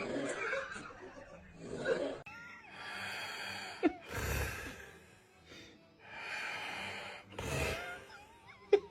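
Snoring: a series of noisy, wheezing breaths in and out, about half a second to a second each, one with a whistling tone bending through it.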